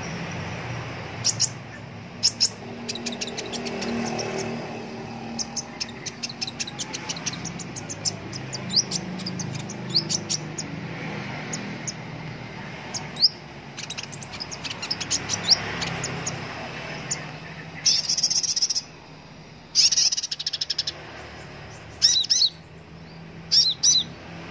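Van Hasselt's sunbird (kolibri ninja) singing: quick runs of high, thin chirps and twittering notes, with louder rapid chatters in the last few seconds.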